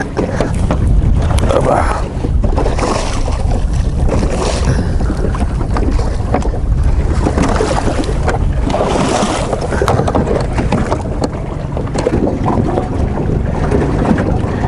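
Small motorboat running across open sea: a steady low rumble with wind buffeting the microphone and water rushing past the hull.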